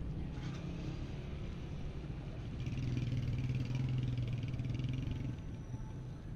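Motorcycle engine running as it passes close by in street traffic, louder in the middle, over a steady rumble of city traffic.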